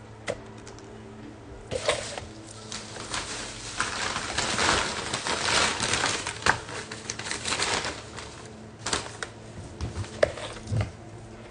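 Potting soil being put into a plant pot by hand: a gritty rustling for several seconds, with scattered clicks and taps against the pot.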